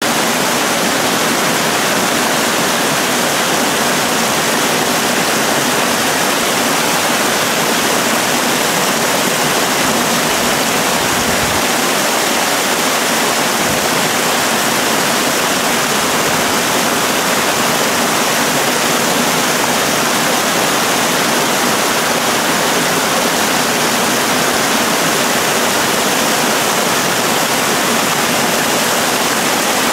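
Small forest stream rushing over rocky cascades: a steady, unbroken rush of water.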